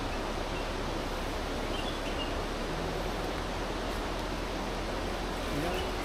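Steady, even rushing noise of outdoor ambience with no distinct events.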